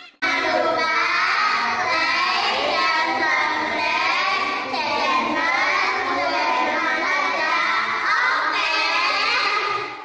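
A group of girls singing a song together, several voices at once, cutting off shortly before the end.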